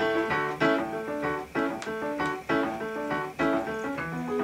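Yamaha CP-70B electro-acoustic grand piano played unamplified, its hammered strings heard acoustically: chords struck one after another, about two a second. It is a little quieter than an ordinary piano but does sound like a piano.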